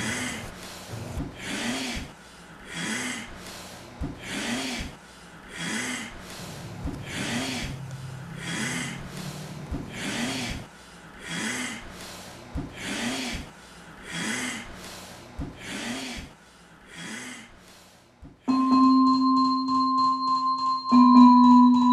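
A person's heavy, rasping breathing, one breath about every second and a half, each with a low groan in it. About three quarters of the way through, the breathing stops and music of steady, held keyboard tones begins.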